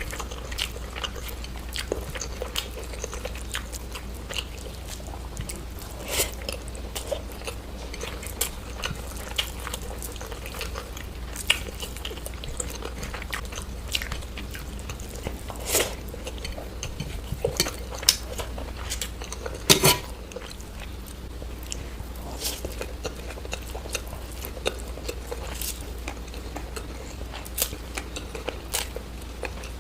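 Close-miked ASMR chewing and biting: irregular crunches and wet crackles with a few louder bites, over a steady low hum.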